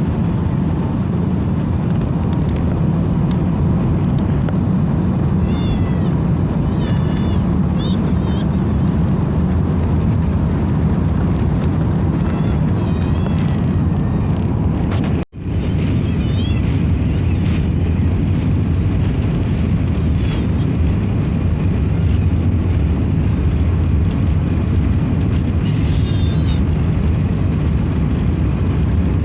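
Airbus A380 cabin noise heard from a passenger window seat: a steady, loud, low rumble of the engines and airflow. The sound cuts out for a split second about fifteen seconds in.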